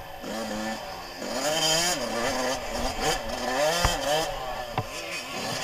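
Suzuki RM85's two-stroke single-cylinder engine, heard close from the bike itself, revving up and falling back again and again as it is ridden hard. It gets louder about a second in.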